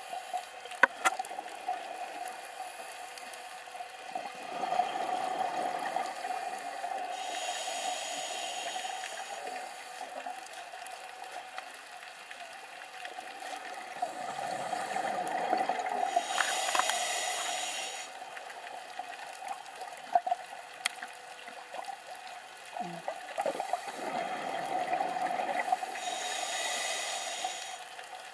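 Scuba diver breathing through a regulator underwater: three slow breaths about nine to ten seconds apart, each a bubbling exhalation followed by a hissing inhalation. A steady hum and scattered faint clicks run underneath.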